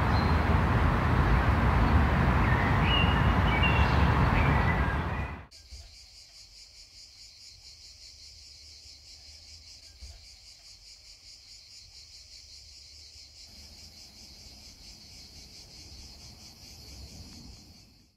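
A loud rushing noise cuts off suddenly about five seconds in. It leaves a faint, steady, high insect chorus with a fine rapid pulse.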